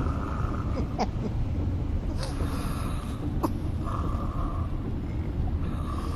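A person snoring in sleep, the noisy breaths recurring every couple of seconds over a steady low rumble.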